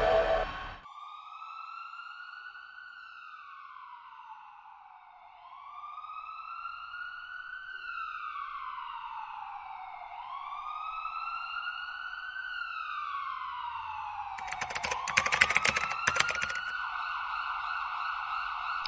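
Emergency vehicle siren wailing, its pitch sliding slowly up and down about every five seconds. A short burst of computer keyboard typing clicks comes near the end.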